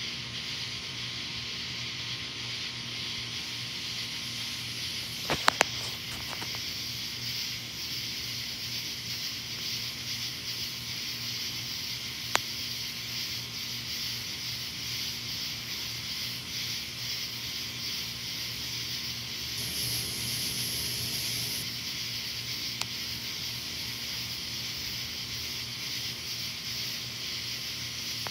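A steady high-pitched chorus of night insects, with a faint low hum under it. A few sharp clicks come about five seconds in, and a single click follows later twice.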